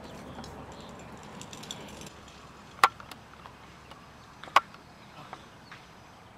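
Two sharp knocks about a second and a half apart, over faint outdoor background noise with a few small ticks.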